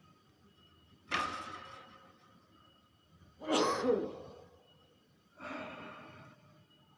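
Hill myna making three short breathy calls about two seconds apart, each starting sharply and fading away, the middle one loudest.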